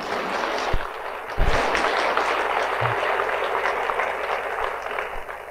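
Audience applauding, building at the start and tapering off near the end, with two low thumps early on.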